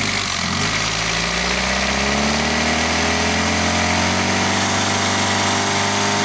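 Isuzu C190 four-cylinder diesel engine running out of a vehicle, its speed and pitch creeping slowly upward.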